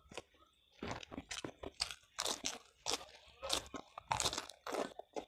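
Close-up crunching and chewing of a mouthful of raw cabbage leaf wrapped around food. After a short pause it sets in about a second in as a quick, irregular run of crisp crunches.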